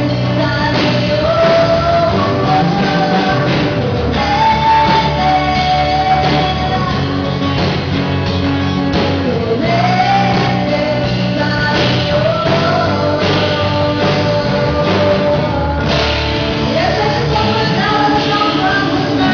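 Live pop-rock band performing a song, a woman's voice singing the melody over drums, bass and guitar, echoing in a large room.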